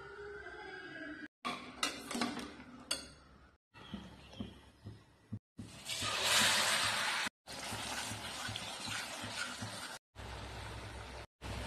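Steel utensils clinking sharply a few times. Then a red purée poured from a mixer jar hits hot oil in a steel pan and sizzles loudly, followed by a steady sizzle and bubble of the cooking masala.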